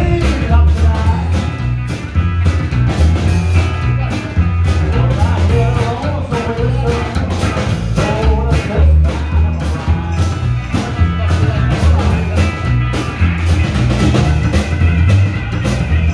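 Rock and roll band music: guitar over bass and drum kit, with a steady driving beat.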